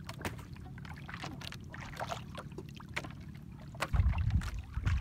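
Water lapping and splashing in short bursts against the hull of a small wooden outrigger boat, over a low rumble of wind on the microphone that turns much louder about four seconds in.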